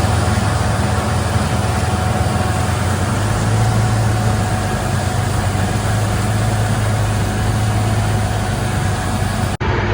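A vehicle engine running steadily at an even speed, with a constant low hum.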